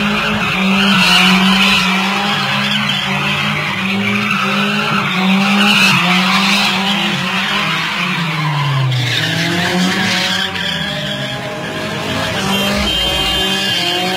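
Old cars spinning donuts, engines held at high revs and tyres squealing against the tarmac. About nine seconds in, the revs drop, then climb again.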